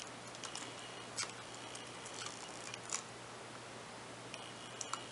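Faint, irregular small clicks and taps of fingertips working a thin flex cable onto its connector plug inside an opened ASUS Nexus 7 tablet, over a low steady hum.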